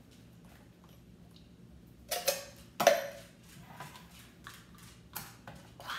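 Canned peaches and syrup being tipped from a metal can into a glass baking dish. About three seconds in comes a sharp snap as the pull-tab lid of a second can is pulled open, followed by light metallic clicks of the can being handled.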